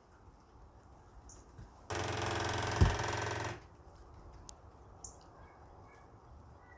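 A rapid, even rattle of fast knocks lasting under two seconds, with one sharp thump in the middle of it.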